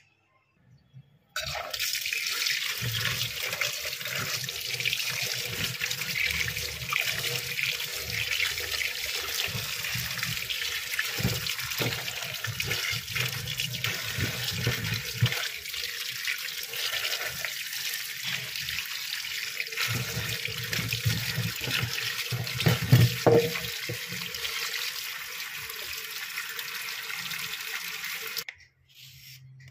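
Kitchen tap running onto white radishes in a plastic colander while a hand rubs and turns them, washing off the soil, with low knocks of the radishes being handled. The water starts about a second in and cuts off suddenly near the end.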